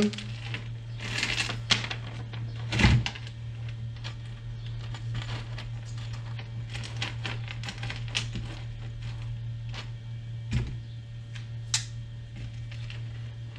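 Light metal chain being handled and measured out on a table for cutting: scattered clinks and ticks of the links, with a heavier knock about three seconds in and another near the end, over a steady low hum.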